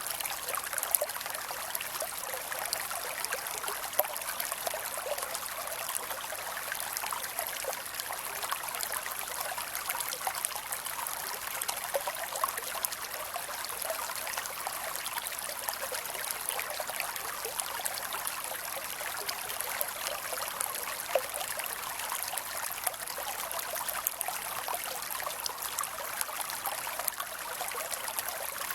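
Creek water running and trickling steadily over stones, a continuous babble of small splashes and bubbles.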